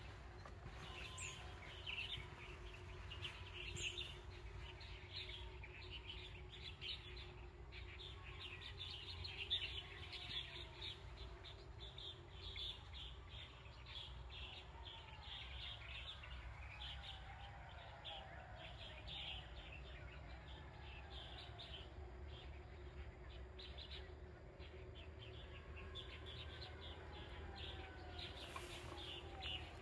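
Birds chirping and twittering continuously, many short calls overlapping, with some falling whistled notes and a low steady hum underneath.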